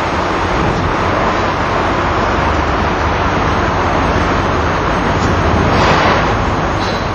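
Steady loud rushing outdoor noise, swelling briefly about six seconds in.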